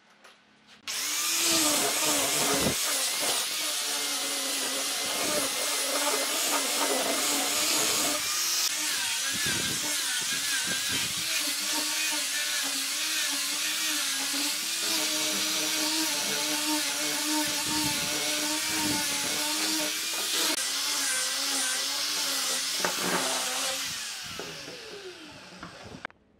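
Electric power tool switched on about a second in and running on wood, its motor tone wavering as the load changes, then switched off and winding down near the end.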